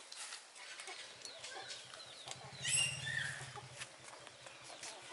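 Baby macaque giving one short high-pitched squeal about halfway through, over faint chirps and a low steady hum.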